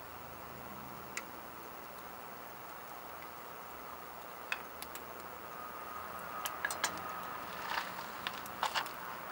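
Conifer firewood burning with a steady hiss and sparse sharp crackles and pops, which come more often in the second half. A faint thin whistle, like sap or steam hissing from the wood, runs for a couple of seconds past the middle.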